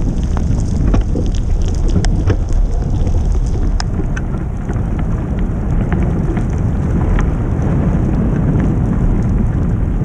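Heavy wind buffeting the microphone of a camera riding on a bicycle in a snowstorm: a loud, steady low rumble. Scattered sharp ticks run through it, more of them in the first few seconds.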